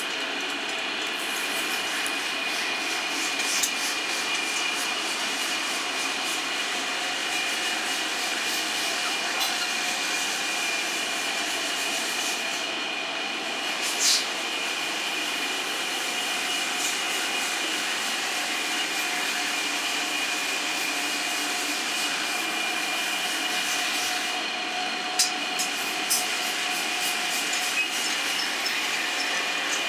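A steady mechanical hum with a couple of constant high-pitched tones, broken by a few sharp metallic clinks from steel tyre tools being handled, the loudest about halfway through.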